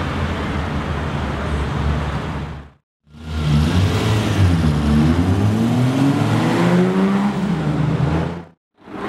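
Classic sports coupe's engine running at low speed; after a brief cut to silence about three seconds in, the engine accelerates, its pitch climbing steadily for a few seconds before easing off.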